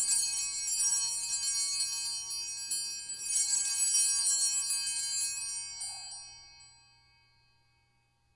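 Altar bells, a cluster of small hand-shaken bells, rung in two peals at the elevation of the host just after the consecration. The second peal rings on and dies away over a couple of seconds.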